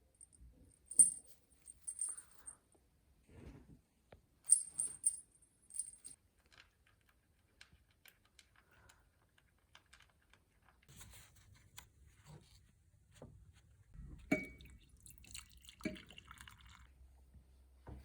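Light metallic jingling in a few short shakes during the first six seconds, like a small bell or keys. Then soft knocks and rustling, with a sharper clink about fourteen seconds in and another about two seconds later.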